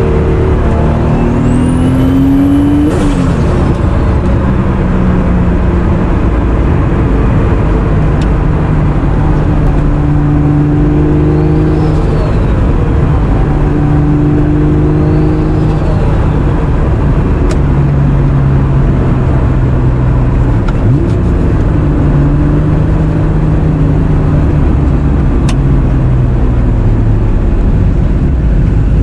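Turbocharged Honda NSX's 3.0-litre C30A V6 (BorgWarner EFR 7670 turbo at 12 psi) running while driving, loud and steady over road noise. The engine pitch climbs briefly a couple of seconds in, then cuts back, and otherwise holds fairly level with small shifts up and down.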